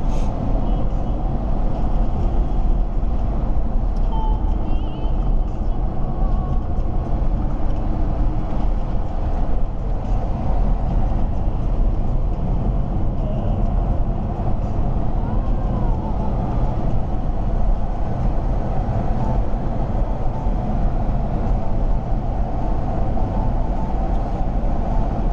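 Steady road and engine noise heard inside the cabin of a BMW X5 3.0d diesel cruising at motorway speed, heaviest in the low rumble.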